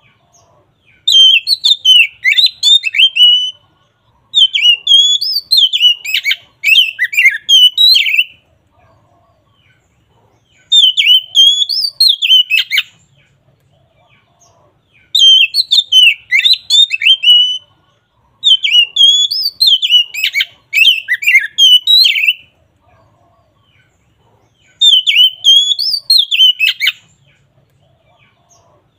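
Oriental magpie-robin (kacer) in full, loud song: phrases of varied, quickly rising and falling whistles, each two to four seconds long, repeated after short pauses.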